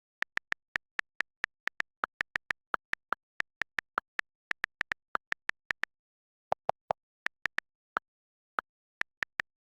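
A quick, irregular run of short, sharp clicks, a few a second, most at one higher pitch and a few at a lower pitch, with complete silence between them; there is a short pause about six seconds in.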